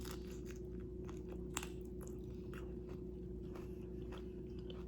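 Close-up mouth sounds of someone chewing a turkey, avocado and kale wrap, with irregular small wet clicks and crunches. The chewing is faint, over a steady low hum.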